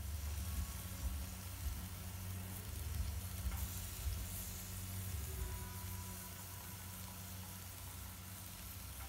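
Thick steaks sizzling steadily on a hot barbecue grill grate, over a steady low rumble.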